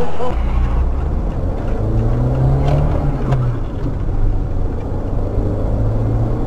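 Car engine running with road noise, a steady low hum whose note rises and falls gently about two seconds in, with a couple of faint clicks.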